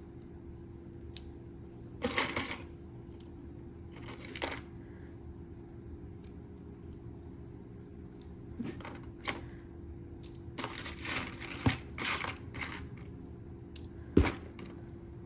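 Small metal jewelry pieces clinking and rattling as they are handled and set down, with scattered sharp clicks and short stretches of jangling, over a faint steady hum.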